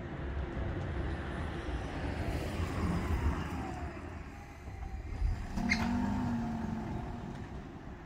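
A Toyota Aqua hatchback driving across a railway level crossing: a low rumble of tyres and engine that swells as it passes, with a sharp knock a little past the middle as it goes over the rails, then fading as it drives away.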